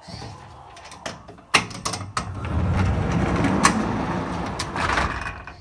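A door being pushed open, with sharp clicks and knocks, then a loud rustling and rumbling noise for about three seconds.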